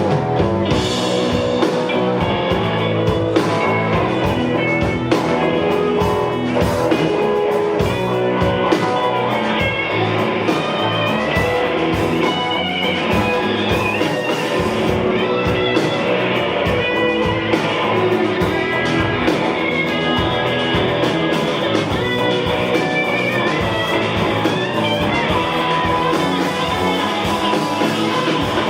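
Live rock band playing an instrumental passage: drums, bass and electric guitar, the guitar to the fore.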